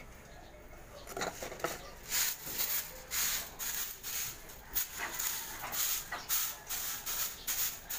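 Broom sweeping volcanic ash off concrete pavement: a run of short, scratchy strokes, about one to two a second.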